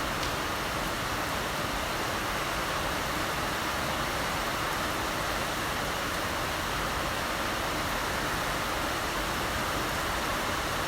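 Heavy rain falling: a steady, even hiss of rainfall with no distinct drops or thunder standing out.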